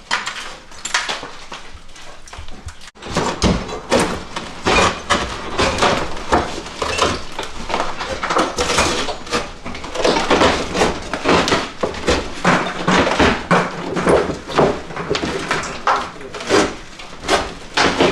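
Old ceramic tile countertop and its mortar bed being pried up off kitchen cabinets: a dense run of cracking, crunching, knocking and scraping. It gets going in earnest about three seconds in.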